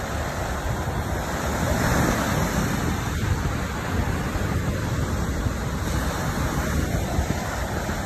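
Ocean surf breaking and washing up a sandy beach in a continuous hiss, swelling a little about two seconds in, with wind buffeting the microphone in a low rumble.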